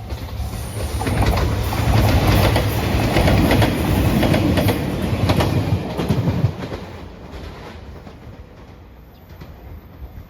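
A train passes over a level crossing at speed, loud for about five seconds with rapid clicking of the wheels over rail joints, then fades away. A level-crossing warning bell is ringing at the start.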